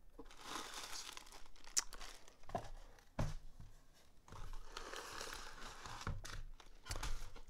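Plastic air-pillow packing and a white padded poly mailer crinkling and rustling as they are handled and lifted out of a cardboard box, with a few short knocks against the box in between.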